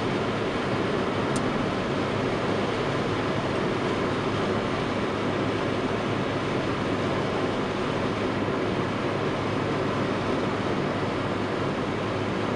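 Steady road noise of a car driving at speed, heard from inside the cabin: tyres running on asphalt with the engine underneath, at an even level throughout.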